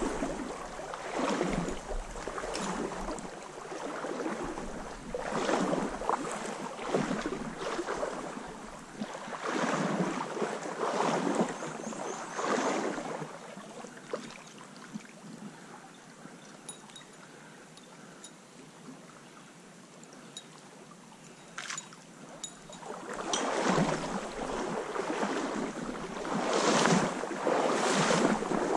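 Legs wading through a shallow stream, the water swishing around them in surges about every second and a half. In a quieter stretch in the middle, the stream's steady flow and a few faint clicks are heard before the wading surges start again.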